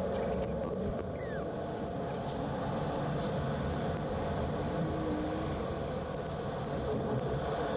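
Steady road and engine noise heard from inside a moving car's cabin. A brief falling squeak cuts through about a second in.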